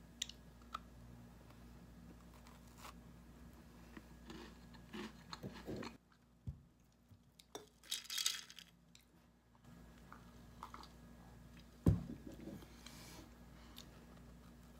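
Close, ASMR-style handling sounds: a cookie broken apart with small crunches and crackles, then ice rattling in a stainless steel tumbler as the drink is swirled about eight seconds in, and a sharp knock about twelve seconds in as the tumbler is set down on the table.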